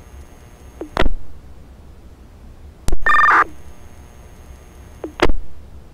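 Two-way fire radio traffic through a Baofeng UV-5R scanner between transmissions: a short squelch crackle about a second in, a sharp click and a brief two-tone beep around three seconds in, and another squelch crackle just after five seconds, over a low radio hum.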